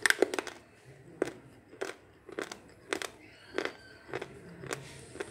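A slate pencil bitten off between the teeth with a quick cluster of sharp cracks, then chewed with single dry crunches about every half second.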